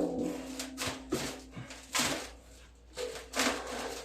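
Scattered metal knocks and scrapes of tools on a hollow steel lawn-roller drum. A ringing tone from a hard knock just before fades out about a second in.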